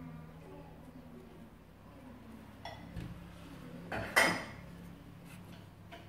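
Kitchenware clinking: a couple of light clinks, then one louder, ringing clink about four seconds in, over a faint steady hum.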